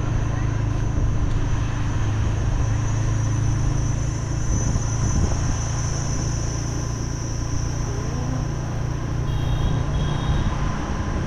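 A small motorbike's engine running steadily at cruising speed, a low even hum with road rumble under it. A thin, steady high-pitched tone sits faintly above it, loudest around the middle.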